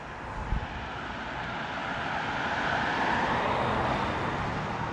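Arrma Granite RC truck with a brushless motor on 6S, making a high-speed pass: a rushing, aircraft-like motor and tyre noise that builds to a peak about three seconds in and then fades.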